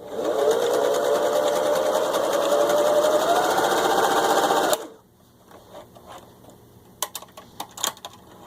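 Singer 353 Genie sewing machine stitching a zigzag, running for about five seconds with its motor whine rising in pitch, then stopping suddenly. A few light clicks follow near the end.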